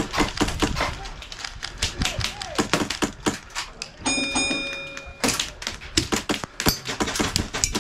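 Airsoft gunfire: many sharp clicks and snaps of shots and BB hits. About four seconds in comes a fast burst of shots from an HPA-driven rifle.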